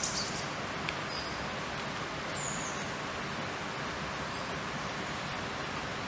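Eurasian treecreeper giving a few very high, thin call notes at irregular intervals, the clearest a short slightly falling note about halfway through. Under the calls is a steady rushing background hiss.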